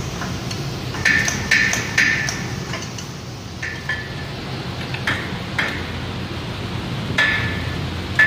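Steel wrenches clinking against the bolts and nuts of a 4-inch pipe flange as they are tightened to stop a leak: about eight sharp metallic clinks at irregular intervals, several with a short ringing note, over a steady low hum.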